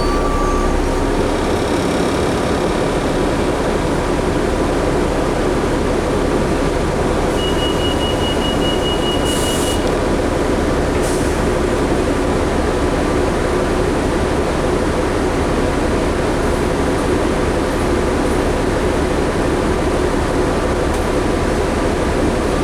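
Interior noise of a 2011 New Flyer D60LFR articulated diesel bus under way: steady engine drone and road noise. A brief rapid high-pitched beeping comes about seven seconds in, with a short hiss near ten seconds.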